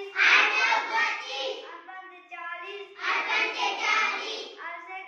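A child chanting in a sing-song voice, in phrases of about a second with short breaks between them, the way Hindi school pupils recite numbers or tables.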